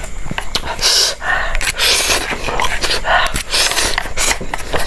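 Close-miked eating mouth sounds: chewing, with a run of short hissy breaths and sucking sounds and small sharp clicks.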